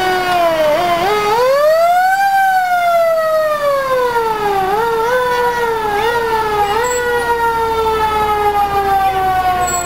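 Fire engine siren wailing as the truck passes: the tone rises to a peak about two seconds in, then winds slowly down, pushed back up in three short steps before falling away again.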